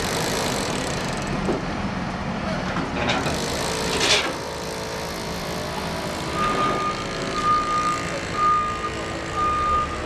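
Truck engine running, with a short burst of hiss about three to four seconds in, then a reversing alarm beeping at a steady pace from about six seconds in.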